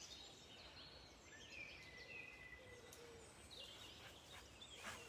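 Faint songbird song: a few short chirps and whistled notes, one held briefly, over quiet outdoor background.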